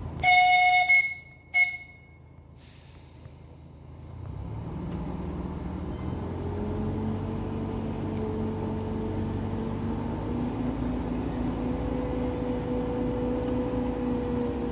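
Miniature railway locomotive giving a long whistle blast and a second short one, then its diesel engine opening up as it pulls away, the engine note rising slowly and steadily.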